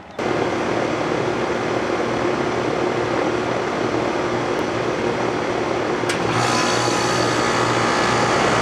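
A Rheem 4-ton central air conditioner's outdoor unit starting up: its Copeland scroll compressor and condenser fan kick on abruptly and run with a steady, noisy mechanical sound. About six seconds in there is a click, and the compressor grows louder and brighter, very loud. This is the unit's normal startup noise, not a fault.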